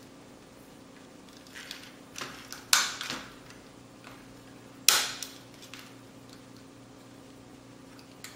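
Hard plastic parts of a toy RC car clicking and knocking as the body is handled and its snap-fit tabs are pried at: a few scattered clicks, two of them sharp and loud, about three and five seconds in.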